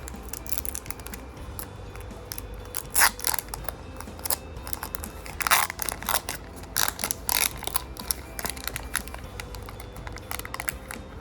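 A foil card booster-pack wrapper being crinkled and torn open, in irregular crackly rustles. The loudest come about three and five and a half seconds in.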